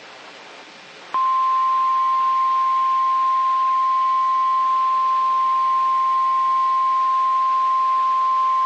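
Faint radio hiss, then about a second in the NOAA Weather Radio 1050 Hz warning alarm tone starts: one steady, high, unbroken beep. It is the signal that a warning message follows.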